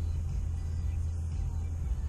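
Steady low rumble inside a parked car, with faint music playing.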